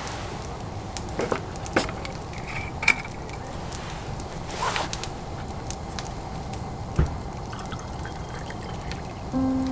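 Liquid pouring and dripping, with a few sharp small clicks over a steady low hiss.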